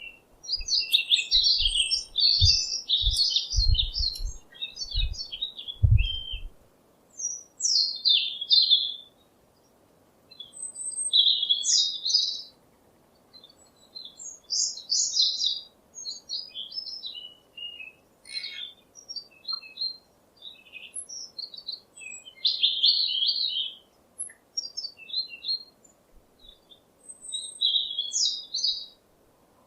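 Small songbirds chirping and singing in short, rapid phrases with brief pauses between them. A few low thumps come in the first six seconds.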